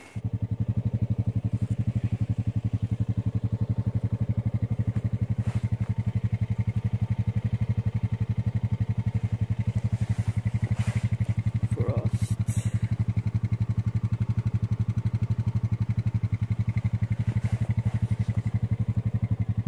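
A small engine idling steadily with a fast, even pulse.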